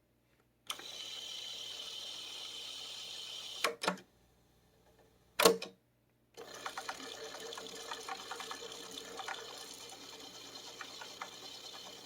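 Yamaha K-550 cassette deck's tape transport mechanism running with a steady whir. It stops with a double click of the transport controls, and a single loud click comes about two seconds later. The mechanism then starts running again with a faint ticking rattle.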